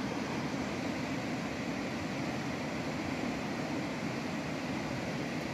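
A gurgling stream running steadily: a constant rush of water.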